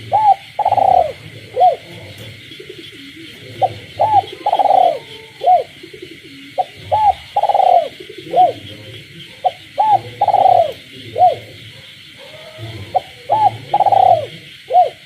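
A captive spotted dove cooing its song five times, about every three seconds. Each phrase is a couple of short notes, a long coo and a short closing note. Frogs call steadily in the background.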